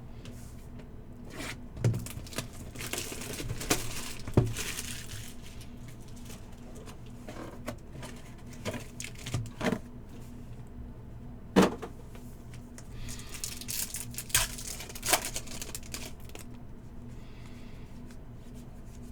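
Trading-card packs being opened by hand: foil wrappers tearing and crinkling in two stretches, with scattered sharp clicks and taps as cards and packaging are handled.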